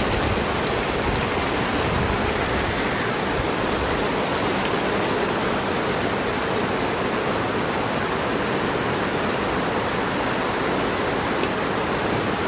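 Heavy tropical-storm rain pouring down steadily, a dense, even rushing hiss.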